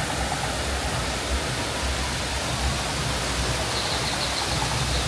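Steady rush of water falling from the rockwork waterfalls, with a low rumble under it. Faint high chirps come in near the end.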